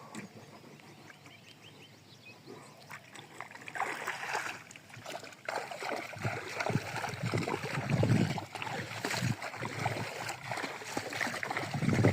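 Water splashing and sloshing with irregular knocks and clatter, starting quietly and getting much louder about four seconds in.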